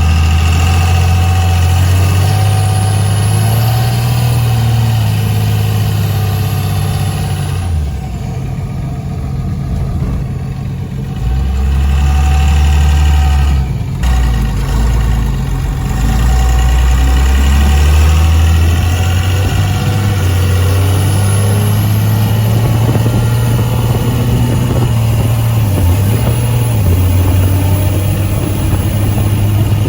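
5.9 Cummins turbo-diesel engine running under way as the truck drives, its note dropping about eight seconds in and climbing again a few seconds later.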